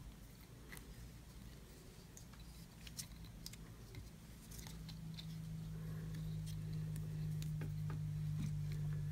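Light clicks and ticks of stiff hard-monofilament weed-guard pieces being handled against a jig head held in a fly-tying vise. About halfway through, a steady low hum comes in and grows louder.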